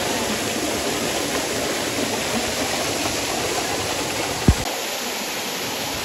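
Water rushing and splashing steadily over rocks in a shallow stream cascade. About four and a half seconds in there is a brief low thump.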